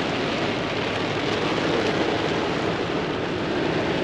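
Heavy rain beating on a truck's windshield and roof, heard from inside the cab as a steady, dense hiss.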